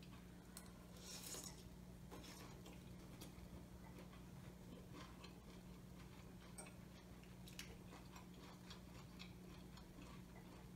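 Near silence: a man chewing a mouthful of beef and green bean stir-fry, with faint scattered clicks from his mouth and his fork on the plate over a low steady hum. A slightly louder soft mouth noise comes just over a second in.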